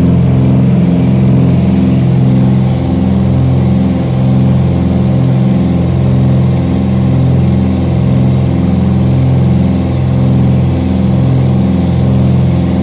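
Twin six-cylinder piston engines of a Cessna 310 running at takeoff power through liftoff and climb-out, heard from inside the cabin. A steady, loud drone with a slow, regular wavering pulse.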